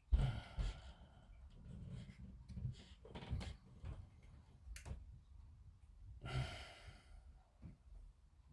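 A person exhales in a long sigh about six seconds in, with a few faint clicks and taps of plastic model-kit parts being handled.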